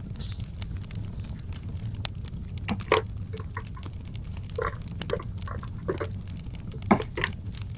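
Wood fire crackling: scattered pops and snaps over a steady low rumble, with the sharpest snaps about three seconds in and again near seven seconds.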